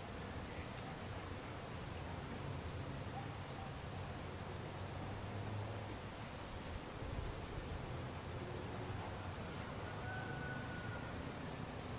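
Garden ambience: a steady low background hiss and rumble with scattered faint bird chirps and a thin, steady high-pitched tone.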